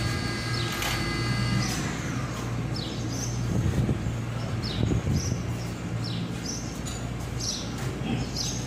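Steady low hum of running machinery with scattered short high chirps over it. A high steady whine cuts off about two seconds in.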